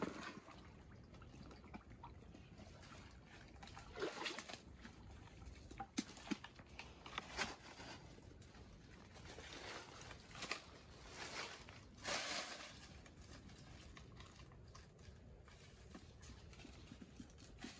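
Hands digging and scooping in wet mud and shallow water: faint squelching with scattered short splashes, a handful of them louder through the middle.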